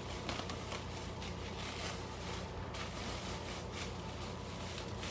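An electric fan running with a steady whir, with irregular rustling and scraping as clothes and shopping bags are handled.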